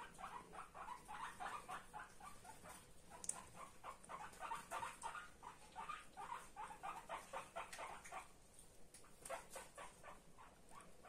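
Guinea pig squeaking: a fast run of short, faint squeaks, several a second, with a brief pause about eight seconds in.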